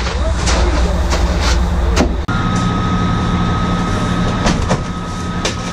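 Crushed ice being shoveled and dumped, with repeated scraping and crunching strikes of the shovel in the ice, over the steady drone of machinery. About two seconds in, the drone changes to a steadier hum with a thin high whine.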